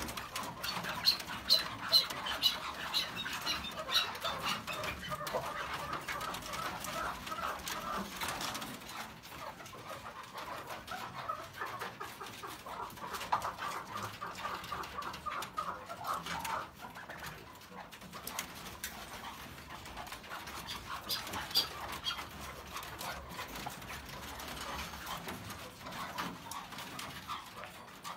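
Caged chukar partridges calling: a run of short repeated notes in the first few seconds, more calls around the middle and again about three quarters through.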